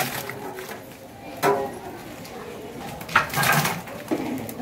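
Raw mutton pieces slide from a wicker basket into a large aluminium pot of masala, with the metal spatula knocking and scraping against the pot a few times, about a second and a half in and again past the three-second mark.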